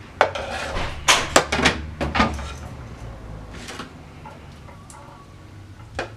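Kitchen utensils and dishes clattering: a quick string of sharp knocks and clicks in the first two seconds or so, then quieter handling and a few more clicks near the end.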